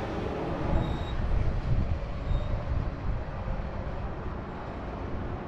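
Low rumble of road traffic mixed with wind on the microphone, swelling about a second or two in.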